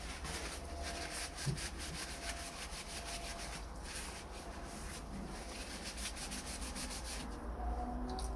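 Paper towel rubbed in quick back-and-forth strokes over the cast-iron frame of an old washing mangle, a dry scuffing that stops shortly before the end.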